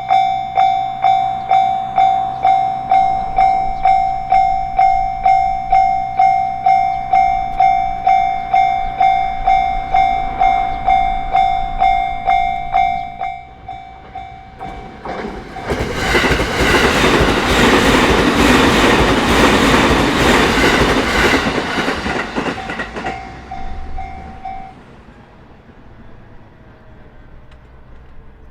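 Japanese railway crossing's electronic warning bell ringing steadily at about two strokes a second, turning much quieter about halfway through. A JR Narita Line train then passes for about eight seconds, its wheels clattering rhythmically over the rail joints, and the sound fades away.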